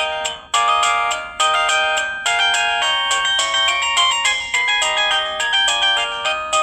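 Preloaded ringtone of an LG VX4650 cell phone playing from its speaker: a synthesized melody of short notes, several sounding at once, each struck and fading, with a brief break about half a second in.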